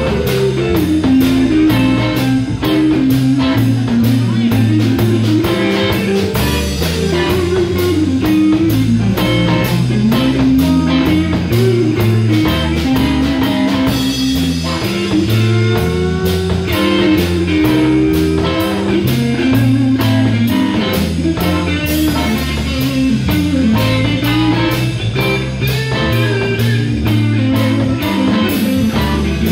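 Live blues-rock band playing an instrumental passage: electric guitar out front over Fender bass and a drum kit keeping a steady cymbal beat, with a Hammond organ in the lineup.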